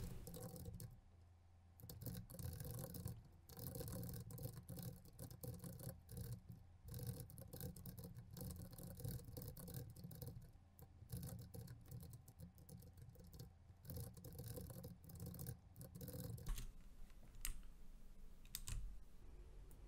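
Faint typing on a computer keyboard: quick, irregular keystrokes that thin out to a few separate clicks near the end.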